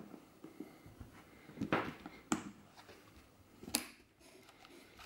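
Leather camera case being opened by hand: rustling and creaking, with two sharp clicks about a second and a half apart.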